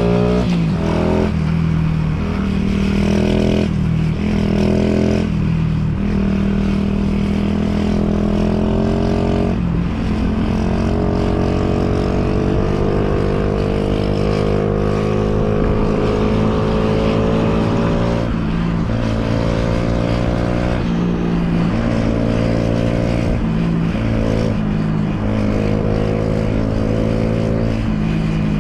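Honda Monkey's single-cylinder four-stroke engine, bored up to 75cc with a Kitaco kit, running through a Takegawa Z muffler while riding. The engine note rises and drops back several times, with a long slow climb in the middle.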